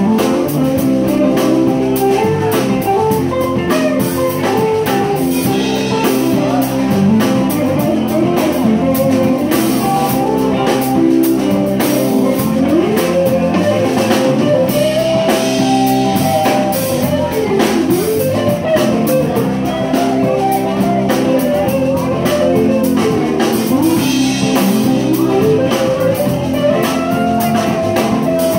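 Live blues-rock band playing: electric guitar, electric bass and drum kit with steady cymbal hits, under a lead melody of bending, wavering notes.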